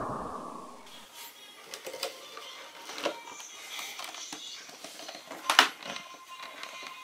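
Cardboard Happy Meal boxes handled by hand: light rustling, tapping and clicking, with one sharper knock about five and a half seconds in. At the start, the tail of a loud hissing breath fades away within the first second.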